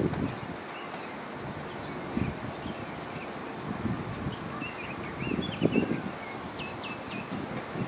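Birds chirping in short, quick whistled notes, with gusts of wind buffeting the microphone; the strongest gust comes a little past halfway.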